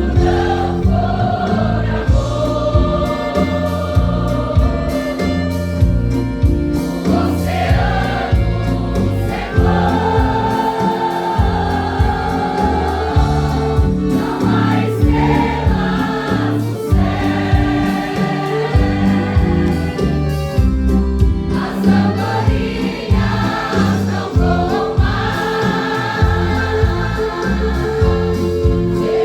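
Pentecostal gospel choir singing a worship song over a band with a steady beat.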